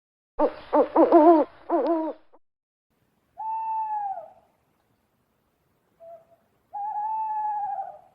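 An owl hooting. It opens with a quick run of quavering hoots that waver in pitch, then gives two long, steady hoots, the second just after a short note.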